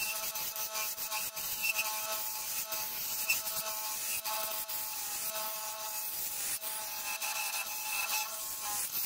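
Wood lathe turning a wood blank while a flat steel chisel cuts its surface: a steady hiss of the cut with a constant hum from the lathe running and scattered light ticks of the tool on the spinning wood.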